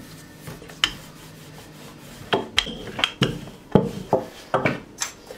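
Wooden rolling pin rolling out a sheet of dough on a silicone mat: a run of rubbing strokes and light wooden knocks, starting about two seconds in.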